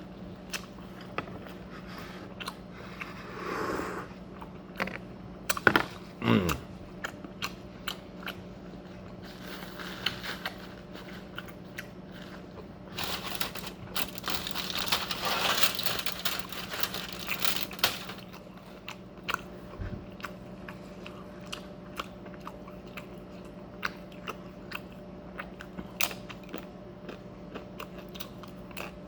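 Close-up mouth sounds of someone eating Mexican food: chewing, biting and crunching with many small wet clicks, and a longer stretch of crunching in the middle. A short loud falling sound about six seconds in, over a faint steady hum.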